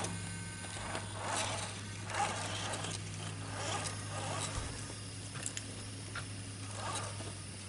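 Scale RC crawler's small electric motor and geared drivetrain whirring in short, repeated bursts of throttle as it crawls up a wooden slat ramp, with its tyres scraping and knocking on the boards.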